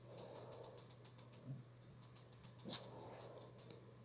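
Faint, quick clicks and scratching from a small dog's paws and claws against a hand and the carpet as it lies on its back pawing for attention, with one slightly louder scuff about two-thirds of the way in.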